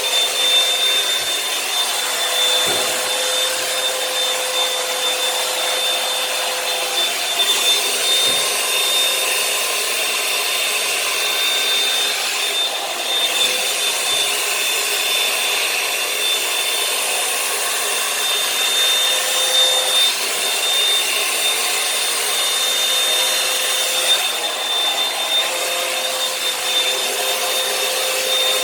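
Revlon One-Step hot-air brush hair dryer running steadily, a constant fan rush with a high whine, while it is worked through hair.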